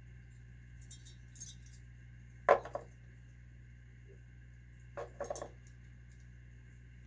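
Small metal engine parts and tools clinking against each other and a hard surface while a nitro RC engine is taken apart: one sharp clink about two and a half seconds in, then a quick run of lighter clinks around five seconds.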